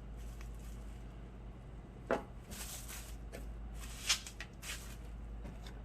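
Plastic bags crinkling and small parts being handled and set down, a few short sharp rustles and taps over a steady low hum.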